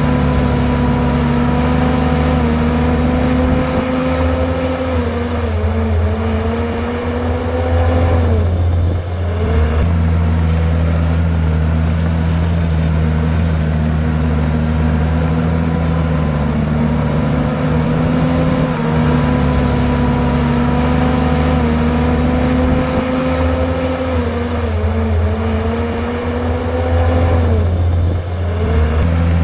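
Komatsu bulldozer's diesel engine running steadily. Its pitch sags and recovers twice, about a quarter of the way in and again near the end.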